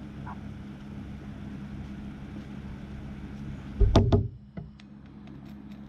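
Handling noise on a work surface during reel disassembly: a short cluster of loud knocks about four seconds in, then a few light clicks, over a steady low hum.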